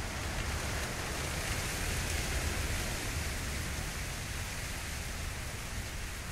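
Steady rushing hiss with a low rumble underneath, swelling slightly around the middle.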